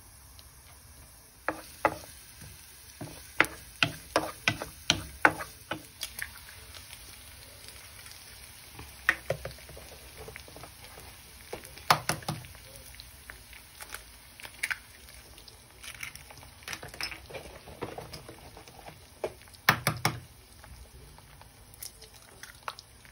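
Diced red onion frying gently in oil in a non-stick frying pan, under a run of sharp taps and clicks from a utensil working the pan and from eggs being cracked on it. There is a quick series of taps in the first few seconds, with louder knocks about halfway through and a close pair near the end.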